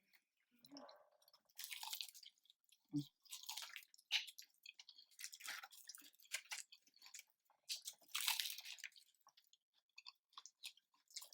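Close-up chewing of homemade fried chicken, its crust crunching in irregular bursts, with a soft low thump about three seconds in.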